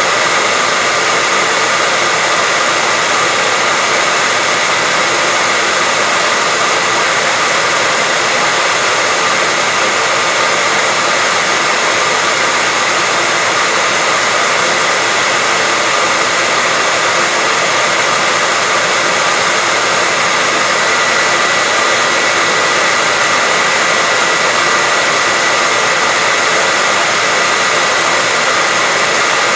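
Hair dryer running steadily, a constant airy rush of fan noise with a faint high whine, played continuously as white noise to lull a baby to sleep.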